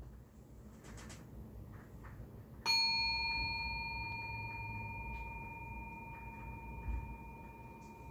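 A small metal bell, struck once about three seconds in, rings out with one clear high tone that fades slowly. Faint handling rustles come before the strike.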